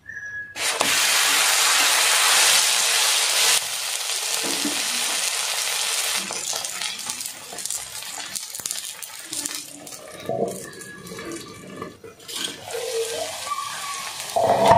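A chicken kari dosa, just flipped topping side down (egg and chicken curry) onto a hot iron tawa, sizzling. The sizzle starts about half a second in, is loudest for the first three seconds, then gradually dies down.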